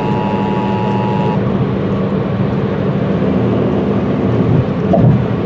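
Steady, loud low rumble of a heavy vehicle engine running, with a constant low hum. For about the first second and a half, a two-tone alert tone sounds over it and then cuts off.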